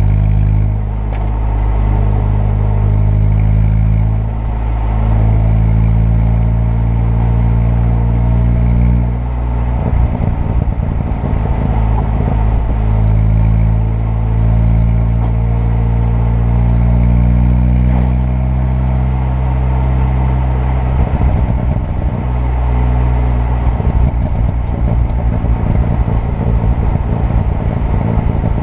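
Turbocharged 2.0 TFSI four-cylinder engine on the road. Its revs climb several times under acceleration, and rapid exhaust crackles and pops come on the overrun about ten seconds in and again through much of the last third.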